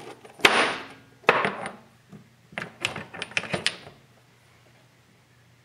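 Steel Maico 500 transmission gears clinking and clacking against each other as they are handled. Two louder clacks with a short ring come in the first second and a half, then a quick run of lighter clicks around the three-second mark.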